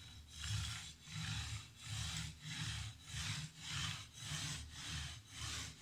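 Kitchen knife blade scraping back and forth on an oiled Arkansas soft whetstone in a guided sharpener, in a steady, even rhythm of strokes.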